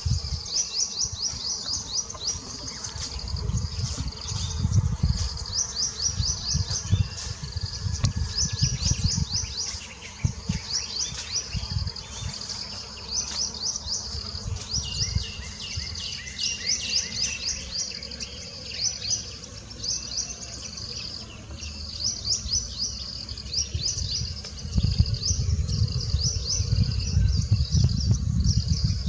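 High-pitched chirping trills from wildlife, each run a quick string of short downward-sweeping notes, repeating throughout. Under them comes an intermittent low rumbling noise, loudest in the first third and again near the end.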